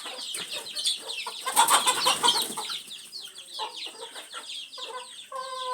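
Chickens calling: a dense run of short, high, falling calls, a louder burst of squawking about two seconds in, and a longer held call near the end.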